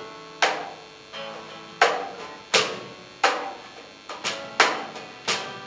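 Acoustic band of acoustic guitar, cajon and keyboard playing a sparse passage of accented hits, roughly one a second. Each hit rings out as a chord and fades before the next.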